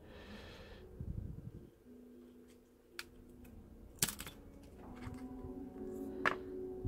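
Quiet handling noise of metal tweezers and fingers working on an HTC One M8's internals as the motherboard is pried loose, with a few sharp clicks about three, four and six seconds in.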